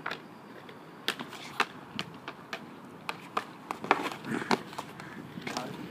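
Roller hockey on asphalt: a hockey stick clacking sharply again and again as it handles and strikes the ball or puck, some clacks half a second apart and the loudest about four seconds in, over inline skate wheels rolling on the pavement.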